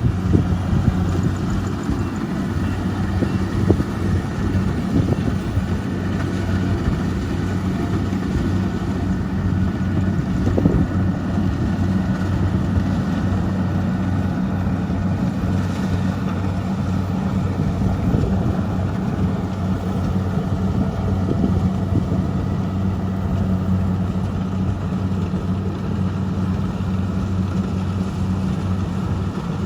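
Kubota rice combine harvester's diesel engine running steadily at working speed, a constant low drone with a few light knocks from the machinery.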